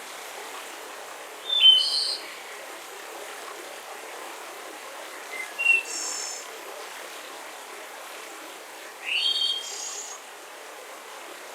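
Wild birds calling in three short bursts of chirps and rising whistles, about four seconds apart, over a steady background hiss of forest ambience.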